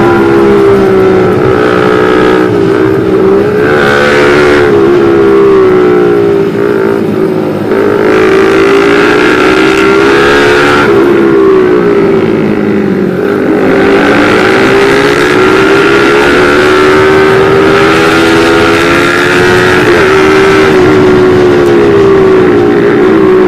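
Motorcycle engine running hard while riding, its pitch rising and falling with the throttle and dipping several times, over a steady rush of noise.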